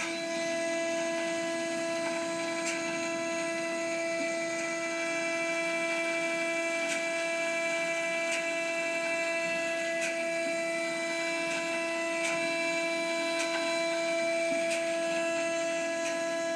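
Haas CNC milling machine cutting aluminum: a steady whine from the spindle and end mill, holding one pitch throughout, with faint scattered ticks.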